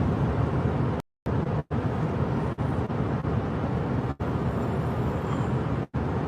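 A steady low rumbling noise that cuts out completely for a moment several times, the longest break about a second in.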